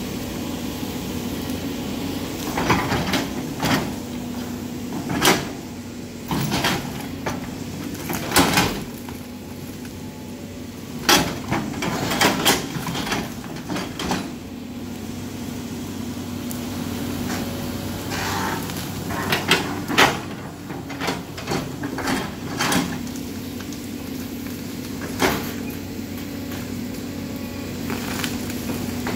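CAT 320D L hydraulic excavator's diesel engine running steadily while its bucket works through a tangle of branches and tree trunks. Over the hum come many sharp cracks and knocks, some in quick clusters, of wood snapping and the bucket striking debris.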